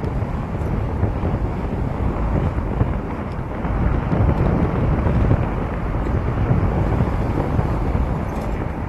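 Wind buffeting the microphone of a camera on a moving bicycle: a steady deep rumble that swells and dips unevenly.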